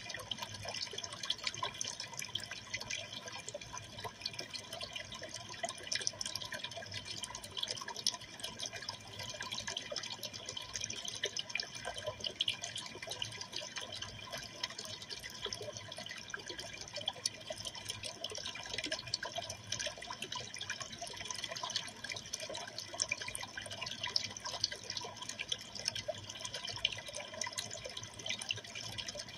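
Aquarium water trickling and splashing steadily, with fine drips, as from a filter's water return falling into the tank.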